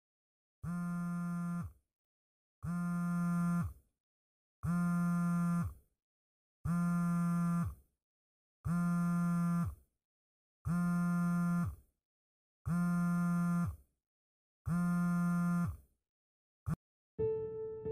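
Mobile phone vibrating with a steady buzz, eight times at about two-second intervals, then one brief blip near the end.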